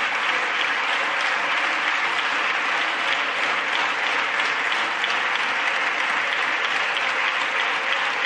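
Many deputies applauding steadily in a parliamentary chamber, a dense even clapping that holds at one level.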